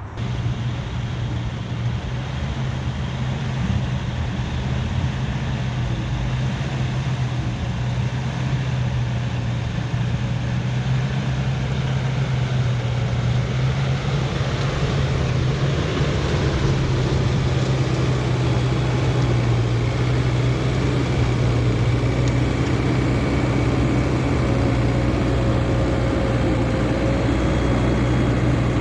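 Caterpillar bulldozer's diesel engine running steadily under work, slowly getting louder, with a faint high whine coming in over the second half.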